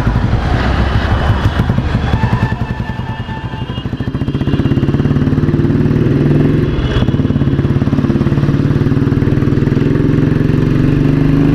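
1970 Royal Enfield Bullet 350's single-cylinder engine thumping along under way, with a fast, even exhaust beat. It eases off briefly, then pulls harder and steadier about four seconds in.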